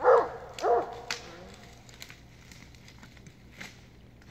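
Coonhound barking at a treed raccoon, two barks at the start, then scattered crackling and snapping of brush.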